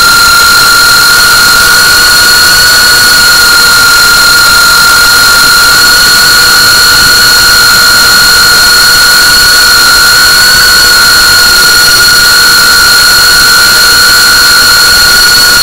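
Brushless motors and propellers of a GEPRC CineLog35 3.5-inch FPV drone at steady throttle, heard from its onboard camera: a loud, high-pitched whine that holds a near-constant pitch.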